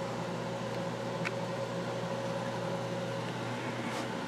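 Steady low mechanical hum in a room, with two faint clicks, one about a second in and one near the end.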